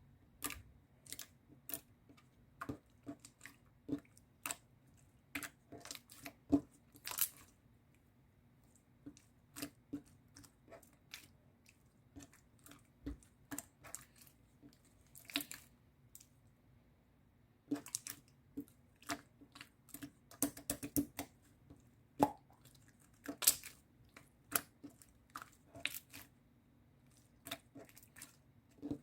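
Irregular sharp clicks, taps and crinkles from small objects being handled, some coming in quick clusters, with brief lulls partway through.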